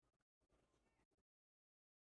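Near silence: a very faint room tone that drops out to dead silence about a second in.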